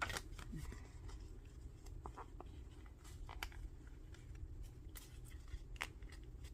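Faint scattered clicks and light rustling as paper and small craft tools are handled.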